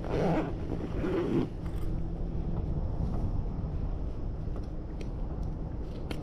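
Hands peeling an orange: faint tearing and crackling of the peel as thumbs dig into it, with a louder rustle of handling in the first second or so and a sharp click near the end. Wind rumbles steadily on the microphone underneath.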